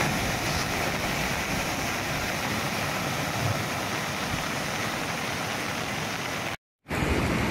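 Flooded river rushing in a steady, continuous roar of fast brown water. The sound cuts out for a moment near the end.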